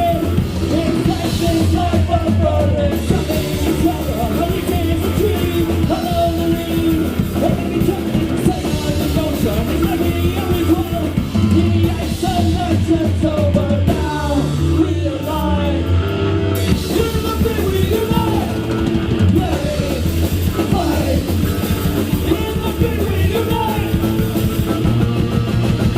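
Live rock band playing loudly, with a drum kit and a singer's vocals over the full band.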